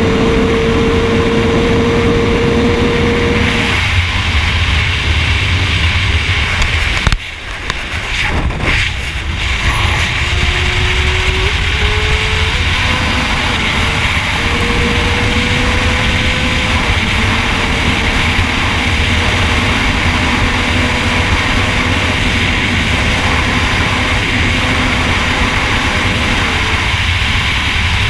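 Sport bike engine running at speed in sixth gear under heavy wind rush. The engine's steady note fades about four seconds in, and the overall sound dips sharply for a couple of seconds around seven seconds in. The note then returns, climbs in a couple of steps and holds steady.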